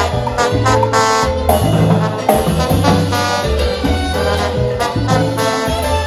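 A Latin dance orchestra playing live: a horn section plays repeated riffs over a walking bass and a drum kit with timbales and cymbals.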